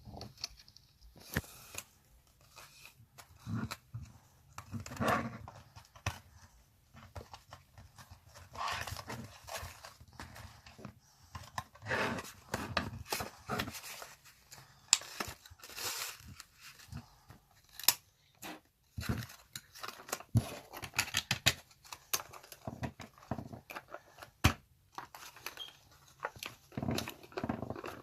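A pack of mini erasers being opened by hand: plastic packaging tearing and crinkling, with many small clicks and taps as it is handled.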